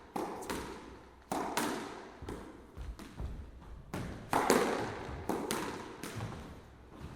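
Squash rally: a run of sharp racket strikes and ball impacts off the court walls, irregularly spaced, each ringing out in the hard, echoing court. The loudest hit comes a little past four seconds in.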